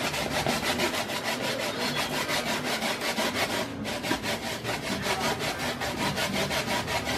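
A kitchen knife sawing back and forth through a whole, partly frozen fish on a cutting board: fast, regular scraping strokes, several a second, with a brief pause about four seconds in.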